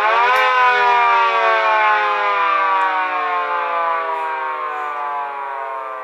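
Miniature replica of a 3T22B multi-horn warning siren, its chord of tones peaking about half a second in and then winding down, slowly falling in pitch and level.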